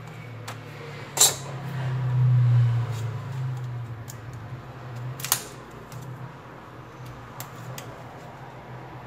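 Tools and parts clicking and tapping against a phone during a back-cover repair: two sharp clicks, about a second in and about five seconds in, with lighter ticks between, over a low steady hum.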